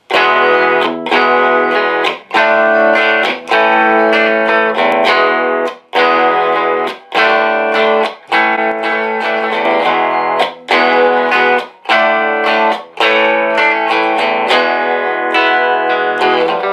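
1959 Fender Duo-Sonic electric guitar with all-original single-coil pickups, pots and capacitors, played through an Orange amp. Chords are strummed in short rhythmic bursts, damped about once a second.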